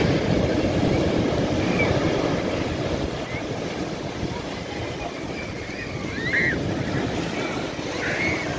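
Sea waves breaking on a sandy beach, then surf and foam rushing up over the sand and rocks. The rush is loudest over the first few seconds and then eases as the wash spreads. A few short bird calls sound above it.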